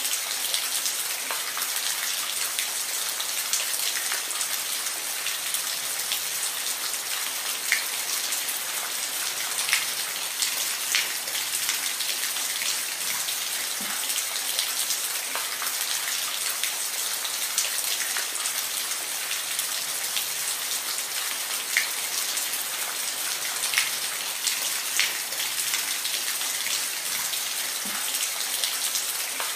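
Steady rain, a continuous hiss with individual drops ticking sharply every second or so.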